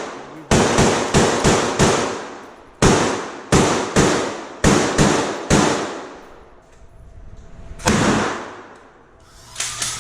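A string of about a dozen gunshots, each with an echoing tail. Five come quickly, about three a second, then six more spaced out over the next few seconds, and a last shot near the end.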